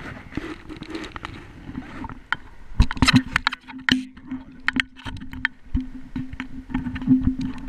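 Handling noise of an action camera being moved around on an inflatable kayak: a string of sharp knocks and clicks as it bumps the kayak's side and the paddle, with a steady low hum from about three seconds in.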